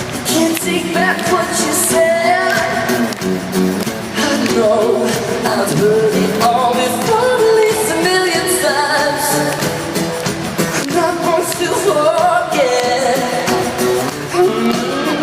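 Live pop song performance: a singer over music, recorded in the concert hall.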